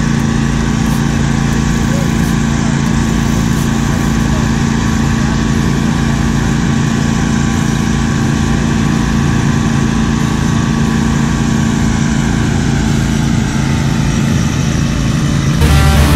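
The 22 hp Briggs & Stratton Vanguard V-twin engine of a Turfco XT8 stand-on aerator running steadily. Music comes in near the end.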